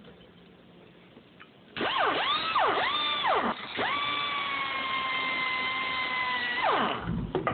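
A power tool with a cutting wheel cutting through a steel handcuff. It starts about two seconds in with a high whine that dips and climbs back twice, holds steady for about three seconds, then spins down near the end.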